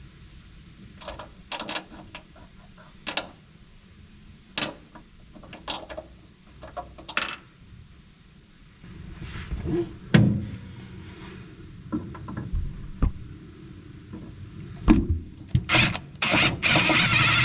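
Irregular sharp metallic clicks and knocks of hand tools and screws as the gas pedal bracket's flathead screws and nuts are worked loose, with a few louder knocks about ten and fifteen seconds in.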